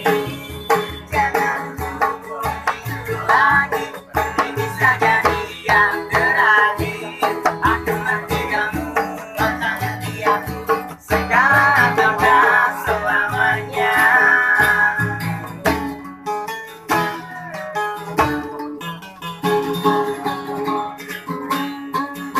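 Street buskers strumming two acoustic guitars and beating an improvised hand drum made of tubes, with group singing over a steady beat.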